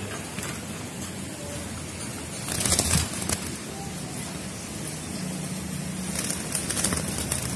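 Young zebra doves (Bangkok perkutut) flapping their wings in a wire cage. There is a short flurry of wingbeats about two and a half seconds in and a longer run of flapping near the end.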